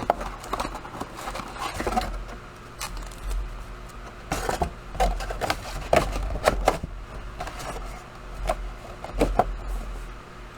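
Cardboard boxes and the trading-card packs inside them being handled and unpacked: irregular scraping with scattered light knocks and taps.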